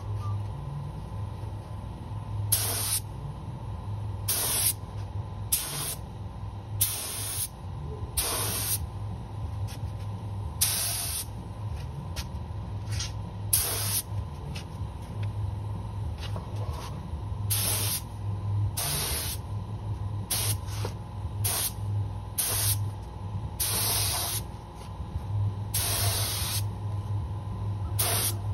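Compressed-air paint spray gun spraying epoxy primer in about sixteen short hissing bursts, one per trigger pull, each lasting half a second to a second, over a steady low hum.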